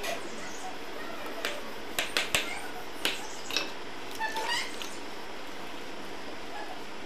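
Scattered sharp taps and scrapes of a mason's steel trowel working cement mortar on a floor being tiled, then a short run of squeaky sounds about four seconds in.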